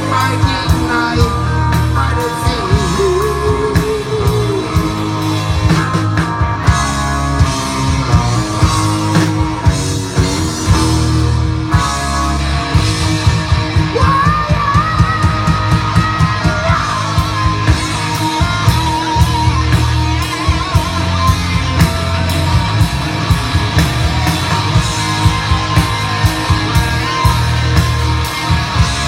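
Live rock band playing an instrumental passage: drums with a steady beat, bass and electric guitar, with a lead line carrying the melody and some shouting from the stage or crowd.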